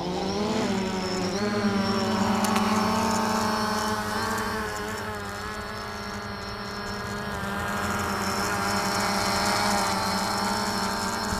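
The motors and carbon fiber folding propellers of a DJI Phantom 3 Standard quadcopter rise in pitch as they spin up over the first second, then settle into a steady hum that wavers slightly in pitch. The new props set up a vibration that makes the drone hard to control.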